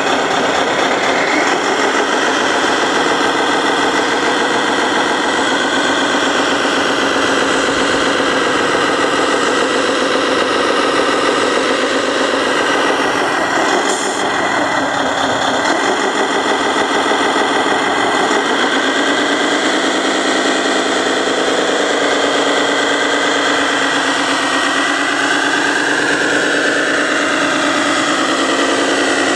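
Radio-controlled model truck driving, its engine sound running steadily with a pitch that rises and falls slowly as it moves.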